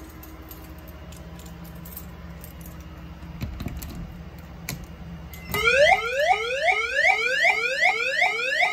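A few handling clicks and knocks as a device on the wall is operated. About five and a half seconds in, a fire alarm system's tornado alert tone starts: a loud, rapidly repeating rising sweep, about three a second.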